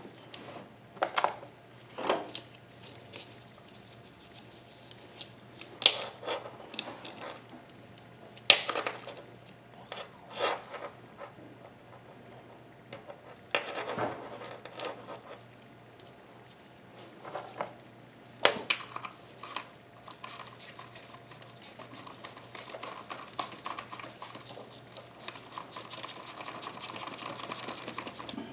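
Hand tools and metal engine parts clinking and knocking at irregular intervals, then a denser run of rapid clicking building up over the last several seconds.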